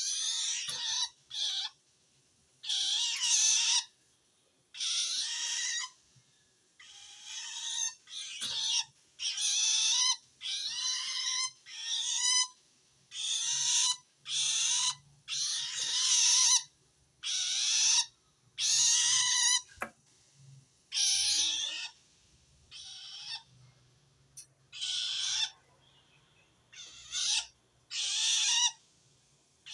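Long-tailed shrike (cendet) giving harsh calls over and over, each about half a second to a second long with short gaps between. The uploader takes this call as the sign of a shrike that feels threatened by another shrike.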